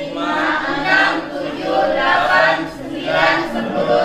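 A group of adult voices counting aloud together in Indonesian, chanting the numbers one by one at a steady, even pace.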